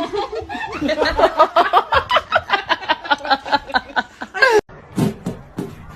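A person laughing hard in quick rhythmic bursts, about six a second, cut off suddenly near the end.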